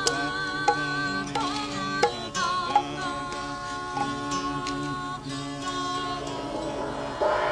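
Music: a sustained, wavering melody over a steady drone, with plucked or struck notes now and then. A brighter, noisier texture swells in near the end.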